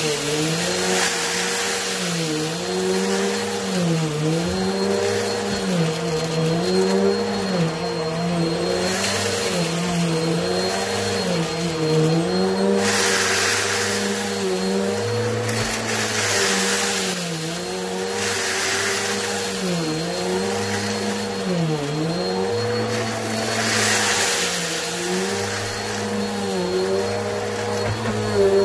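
Bissell Helix Turbo upright vacuum running on carpet, its motor pitch dipping and recovering about every two seconds with each push-and-pull stroke. Several short sizzly, crunchy bursts as it sucks up dried noodle bits and lint.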